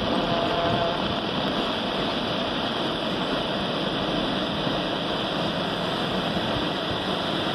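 Boeing 737-800's CFM56-7B jet engines at takeoff thrust as the airliner rolls, rotates and lifts off: a steady, even rushing noise.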